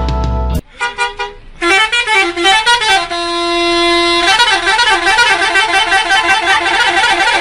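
Telolet bus horn, a multi-tone musical air horn on an Indonesian tour bus, playing a quick up-and-down tune, holding one note for about a second, then a fast repeating warble.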